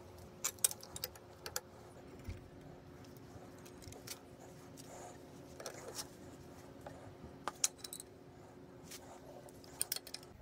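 Steel wrenches clinking and clicking on a brass fitting and copper pipe held in a steel bench vise as the fitting is tightened: scattered sharp metallic clicks over a faint steady hum.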